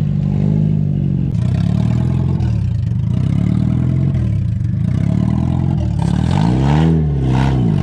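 A car engine revving up and down over and over as the vehicle is driven off-road, with a sharp rev that climbs and drops about seven seconds in.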